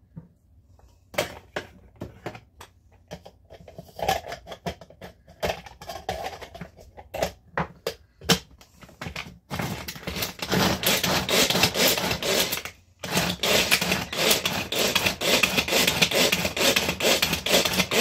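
Manual food chopper worked hard to mince onion: scattered clicks and knocks for the first several seconds, then a fast, dense clatter of its blades and mechanism from about ten seconds in, pausing briefly near the thirteen-second mark before going on.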